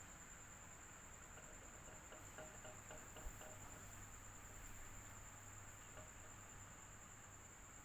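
Electric fan running steadily and quietly: a low hum under a faint hiss, with a constant high-pitched whine. A few faint ticks in the first half and a small click about three seconds in.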